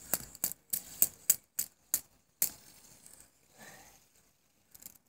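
A run of sharp clicks and rattles from a small hand-held object being handled and fiddled with, fast at first, then quieter handling with a few more faint clicks near the end.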